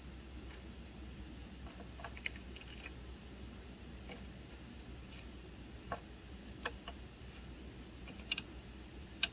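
Soldering iron working solder joints on a circuit-board connector: faint, scattered small clicks and ticks, a few sharper ones in the second half, over a low steady hum.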